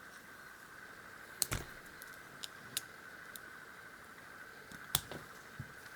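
Scattered sharp metallic clicks and taps of a lock pick working at the circlip of an all-brass padlock, trying to pry it off; the loudest comes about one and a half seconds in and another near five seconds. A faint steady high-pitched hum sits underneath.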